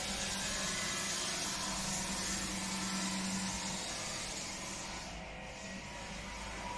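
Steady machine noise with a strong hiss over a low, even hum, a little louder in the first half.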